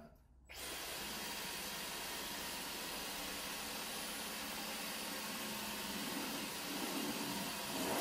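Dyson V15 Detect cordless stick vacuum with the Laser Slim Fluffy cleaner head starting about half a second in and running steadily while picking up long hair: a rushing-air hiss over a steady hum.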